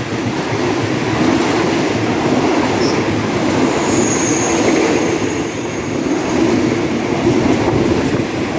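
Passenger coaches of a train rolling past close by: a steady loud rumble and rattle of wheels on the track, with a brief faint high squeal about four seconds in.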